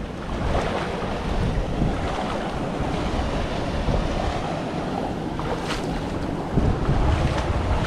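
River water rushing during a wade across a shallow canyon river, with wind buffeting the microphone. The buffeting comes as low rumbles, strongest near the end.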